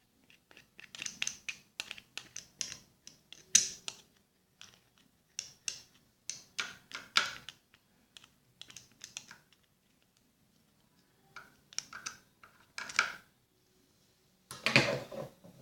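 Quick, irregular clicks and snips in short runs, made by a cutting tool being worked through the toilet-paper and soap slime mixture, with a louder clatter near the end.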